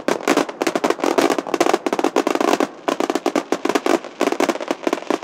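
Aerial fireworks grand finale: a dense barrage of shell bursts and crackles, many bangs a second overlapping almost without pause, with a brief lull near the middle.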